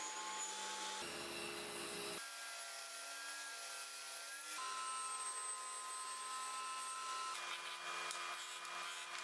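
Power tools in short back-to-back clips: a router table milling plywood strips, then a disc sander sanding a small wooden part. Each has a steady motor whine over cutting or sanding noise. The sound changes abruptly every one to three seconds.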